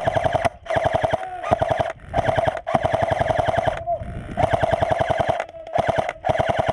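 Airsoft rifle firing full-auto in a string of short bursts, about seven of them: rapid, evenly spaced shots with a steady whine under each burst.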